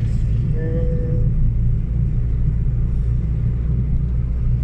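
Steady low rumble of a moving car's engine and road noise, heard from inside the cabin.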